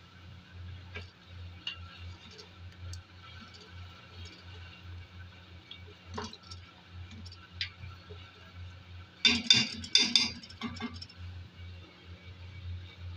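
A spoon stirring beef in tomato sauce in an aluminium pot, scraping and clinking against the pot sides, with a burst of louder, sharper clinks about nine to eleven seconds in. A low steady hum sits underneath.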